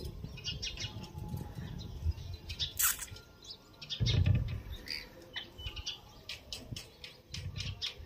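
Rose-ringed parakeets chirping: many short, high calls scattered through, with one louder call about three seconds in. Low thuds and rumbles come between the calls, the loudest about four seconds in.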